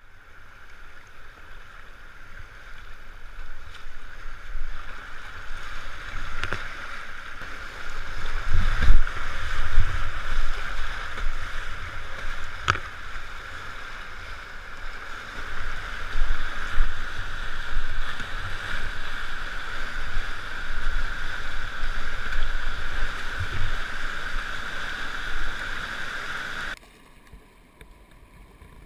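Rushing whitewater heard close up from the deck of a kayak, with low rumbling surges on the microphone and a couple of sharp clicks. Near the end it drops abruptly to a much fainter hiss.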